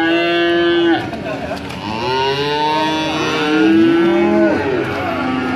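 Calves mooing: one long call at the start, then several overlapping calls from about two seconds in.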